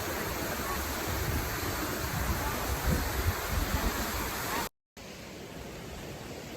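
Steady rushing of falling water from a creek or waterfall, with uneven low rumbling through the middle. Near the end it cuts out for a moment and comes back quieter.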